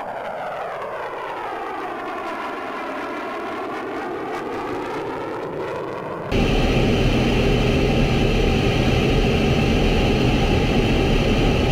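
F-4 Phantom II jet passing overhead, its engine noise sweeping in a phasing whoosh as it goes by. About six seconds in it cuts abruptly to a much louder, steady rushing roar of engine and airflow as heard inside the jet's cockpit.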